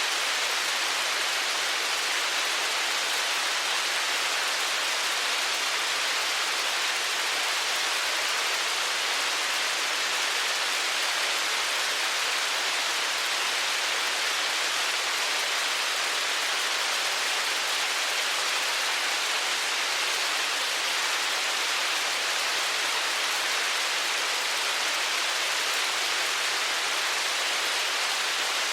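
A heavy downpour falling steadily: a dense, even hiss with no separate impacts standing out.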